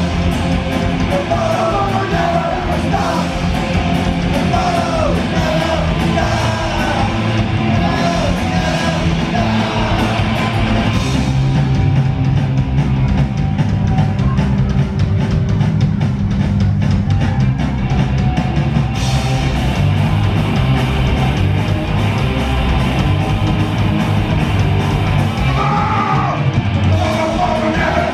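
Live punk rock band playing loud, with drums and electric guitars and yelled vocals that drop out for the middle of the stretch and come back near the end.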